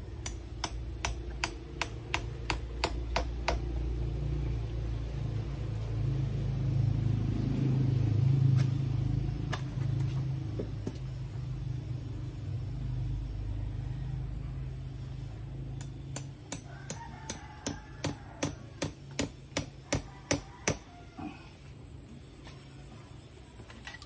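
Hammer blows, about three a second, in two runs: a dozen or so quick strikes at the start and another dozen or more near the end, with a few single knocks between. Under them a low rumble swells midway and dies away.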